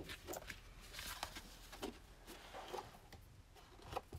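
Faint rustling and light taps of thick scrapbook paper sheets being handled, slid and lifted, as a few scattered soft brushes.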